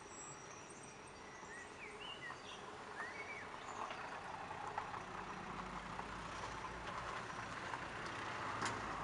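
Motor oil pouring from a plastic jug into an engine's oil filler neck: a steady pouring hiss that grows louder from about four seconds in.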